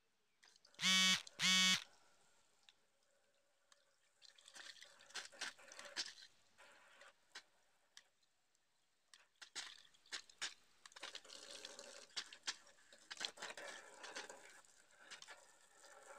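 Water from a hand-held hose spray nozzle splattering onto a motorcycle's engine and frame, in uneven spells of hiss and patter. About a second in, two short loud beeps.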